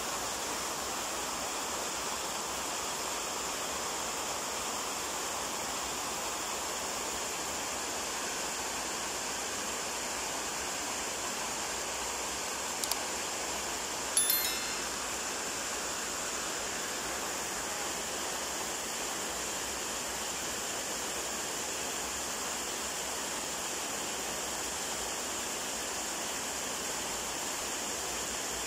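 Steady rush of running water. About halfway through, a sharp click is followed a second later by a brief ringing ping.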